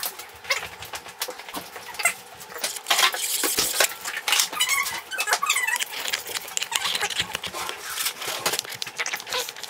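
Handling noise from the fisheye lens adapter and its packaging: a quick run of clicks, taps and rustles, with a few short squeaks about halfway through and again near the end.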